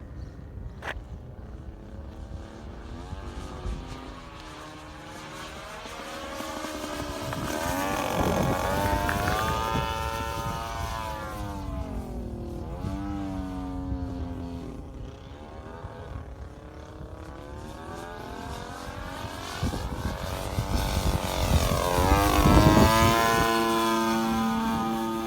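Giant-scale RC Yak 54's two-stroke gas engine in flight, its pitch rising and falling with throttle changes and as the plane passes. It swells loudest on two close passes, one about a third of the way in and one near the end.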